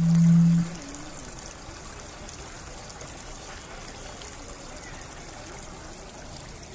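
Decorative tiered water fountains trickling and splashing steadily as water pours from spout to bowl. A loud, steady low hum sounds for about the first second, then stops.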